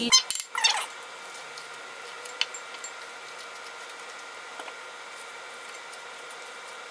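Faint steady background hiss and hum with a few faint ticks, after the end of a spoken word in the first second.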